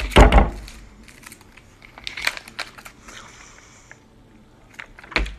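Foil Kool-Aid Jammers drink pouch being handled and crinkled, with a loud thump at the start and another near the end, scattered clicks around two seconds in, and a faint hiss of sipping through its straw a little past halfway.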